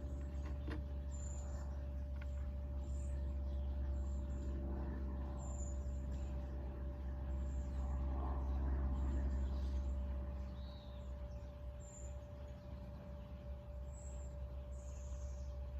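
Steady low machine hum with a constant higher tone running over it, easing slightly about two-thirds of the way through. Faint short high chirps repeat every second or so.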